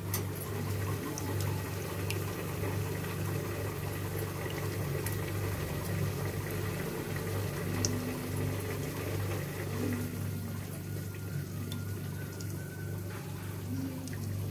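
Hand squeezing and kneading soaked tamarind in a small steel bowl of water, the water sloshing, to dissolve the tamarind into a pulp. A steady low hum runs underneath.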